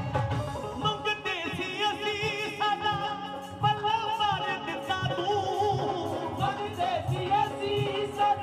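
Live Punjabi devotional song played over a PA system: a voice singing a wavering, ornamented melody over keyboards, dhol and tabla keeping a steady beat.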